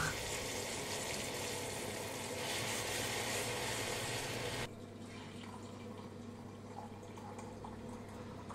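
Electric milk frother running, its whisk spinning milk into foam with a steady hum and frothy hiss. About halfway through the sound drops abruptly to a quieter steady liquid sound, as coffee is poured from a glass carafe into a ceramic mug.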